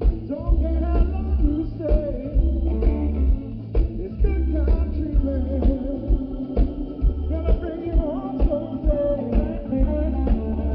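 Live blues band playing an old blues standard: electric guitar over bass and drums with a steady beat.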